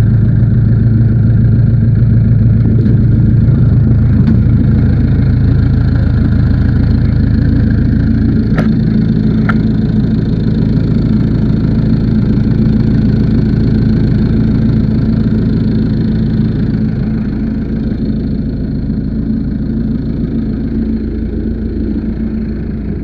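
Backhoe loader engine running steadily, a low, even drone that eases off somewhat over the last few seconds, with a couple of short clicks about nine seconds in.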